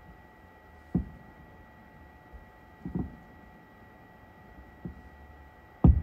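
Distant aerial fireworks shells bursting, heard as dull booms. There is one about a second in, a doubled boom midway, a faint one, and the loudest just before the end.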